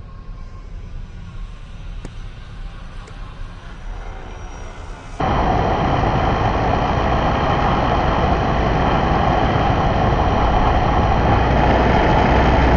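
R/C model airplane's motor and propeller in flight: a fainter drone with slowly gliding pitch, then about five seconds in an abrupt jump to a loud, steady motor and wind noise as heard from a camera mounted on the plane itself.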